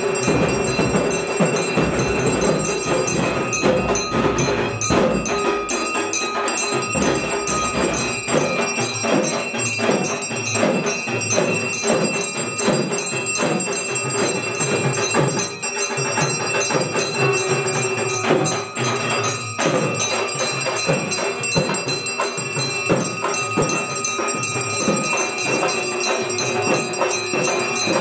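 Puja music: bells ringing over quick, rhythmic percussion, with some long held tones.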